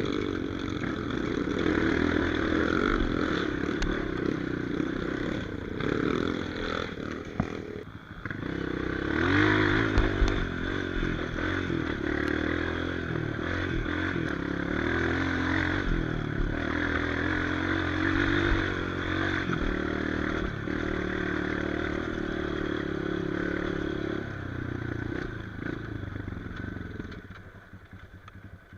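Trail motorcycle engine running hard and revving up and down under load on a rocky climb, with a few knocks from the bike over the rocks. Near the end it drops back and goes quieter.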